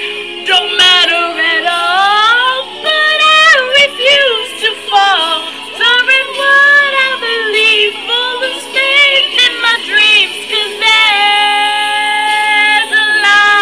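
A woman sings wordless vocal runs with wide vibrato over a pop ballad's backing music, ending on a long held note about eleven seconds in.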